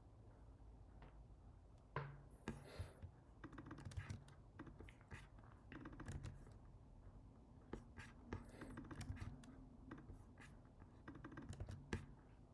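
Computer keyboard being typed on in short, irregular runs of taps, starting about two seconds in.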